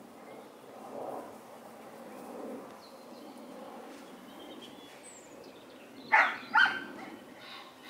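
A dog barking twice in quick succession, two short sharp barks about six seconds in, over a low steady outdoor background.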